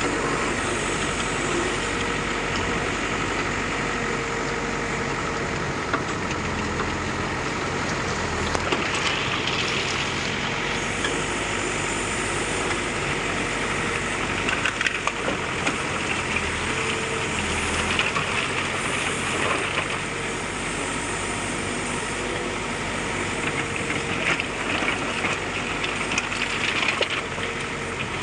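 Backhoe loader's diesel engine running steadily while the machine works soil, growing busier and louder in several stretches, with a few sharp knocks along the way.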